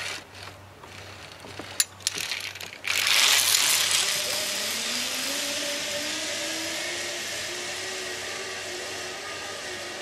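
Sharp metal clicks of a zip-line trolley and carabiners being clipped onto the cable. About three seconds in, the trolley's pulleys start running along the steel cable: a loud whir whose tone rises as the rider picks up speed, then holds steady and slowly fades.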